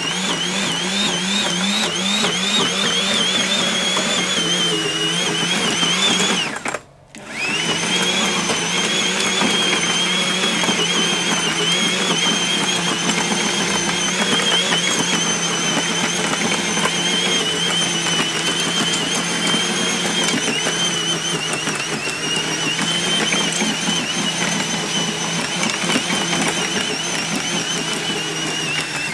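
Small corded electric garden tiller (rotary cultivator) running as its tines dig into turf and hard soil. The high motor whine wavers in pitch as the blades meet resistance. There is a brief gap about seven seconds in, then it runs on. The tiller is fed from a battery through a power inverter that only just copes with its current draw.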